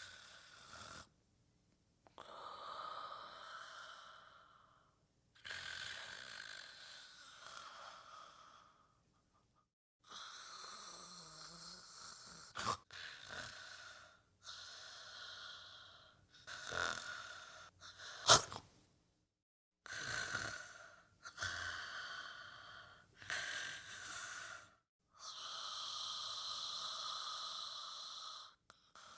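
People snoring: a string of separate snores, one after another, with short silent gaps between them. A sudden sharp snort about eighteen seconds in is the loudest sound, and a longer steady snore runs for about three seconds near the end.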